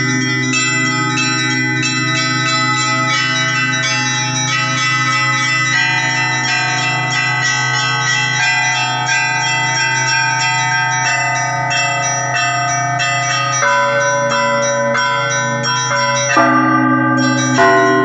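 Russian Orthodox church bells ringing: small high bells struck in a quick, continuous pattern over the steady hum of a deep bell. A louder stroke with new, lower-middle tones comes in near the end.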